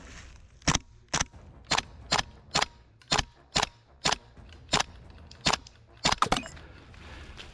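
Airsoft gas-blowback replica fired close by in single shots: about a dozen sharp cracks, roughly two a second, ending in three quick shots in a row.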